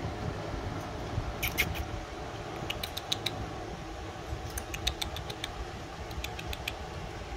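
Small, high clicks and squeaks from 3.5-week-old Cane Corso puppies, coming in short clusters over a steady fan hum.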